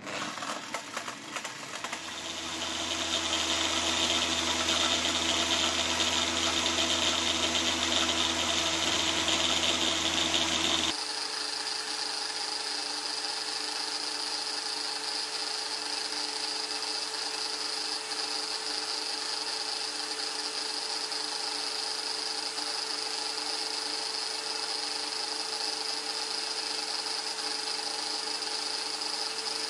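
Electric drill motor running steadily at speed, spinning a metal can as the spinner head of a homemade cotton-candy maker. It speeds up over the first couple of seconds; about eleven seconds in the sound switches abruptly to a slightly different steady whine.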